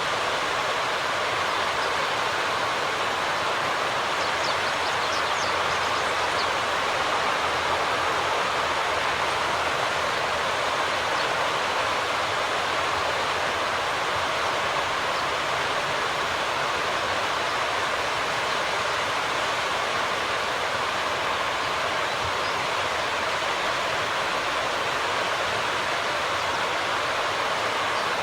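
Steady rush of flowing water, like a river running over a weir or shallows, even and unchanging throughout, with a few faint high bird chirps about four to six seconds in.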